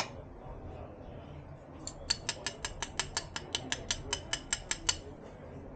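Metal tongs clicking rapidly while saffron is portioned out from a bowl, about sixteen sharp, even clicks, five or six a second. They start about two seconds in and stop near the end.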